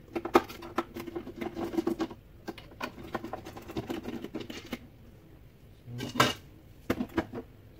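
Plastic clicking, scraping and rattling as hands work at the top of a Saeco Xsmall espresso machine, with a sharper knock about six seconds in.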